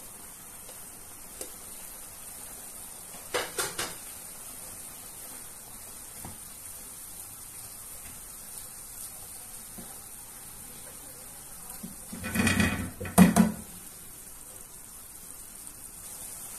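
Chicken and carrots sizzling faintly in a frying pan while a wooden spoon stirs them, knocking against the pan: a few knocks about three and a half seconds in, and a louder clatter of knocks around twelve to thirteen seconds in.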